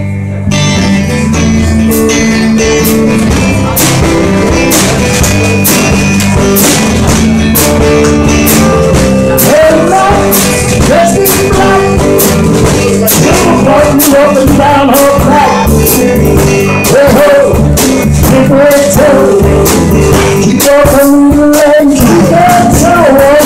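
Live band playing a blues and rock-and-roll number: electric guitars and bass over a steady drum beat. From about ten seconds in, a wavering melody line rides on top, with harmonica near the end.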